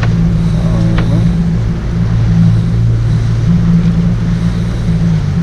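Boat engine running steadily, a loud low hum, with wind and water noise on the microphone; the engine hum stops abruptly at the very end.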